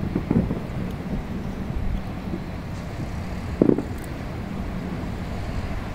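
Distant fireworks bangs: a couple near the start and a louder one about three and a half seconds in, over a steady rumble of city traffic and wind on the microphone.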